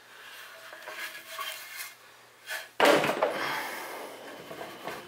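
Quiet handling and shuffling of parts, then about three seconds in a loud metallic clunk as the flipped-over Snapmaker 2.0 metal base plate with its two linear modules is set down on a wooden table, its rattle dying away over about two seconds.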